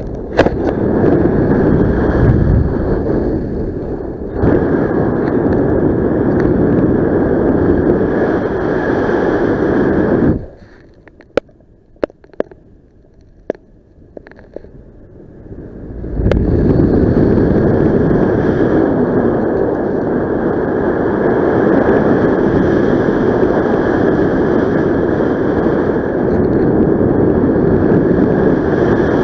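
Loud wind rushing over the microphone of a paraglider pilot in flight. It drops away suddenly about ten seconds in, leaving a few sharp clicks, and returns about five seconds later.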